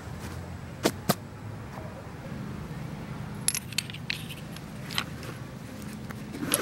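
Small metallic clicks and clinks as the metal fittings of a canvas shoulder bag are handled: two sharp clicks about a second in, then a scatter of lighter clinks through the middle and near the end. A low steady rumble runs underneath.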